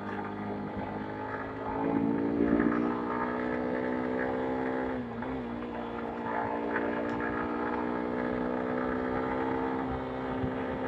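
Honda X-Blade's 160cc single-cylinder engine running steadily as the motorcycle rides along. It gets louder about two seconds in, with a brief dip in pitch near the middle.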